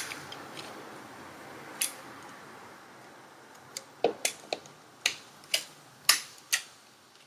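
A series of small, sharp clicks and taps, one about two seconds in and then a run of about seven more in the second half, as the locking tab of a ribbon-cable connector inside a Maschine Mk3 controller is lifted and the ribbon cable is pulled free.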